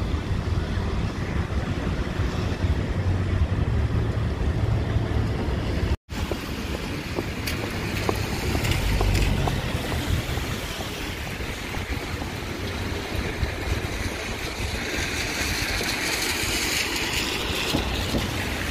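Wind buffeting the microphone over a steady hiss of heavy rain and traffic on wet streets. The sound drops out for a moment about six seconds in, and the hiss turns brighter near the end.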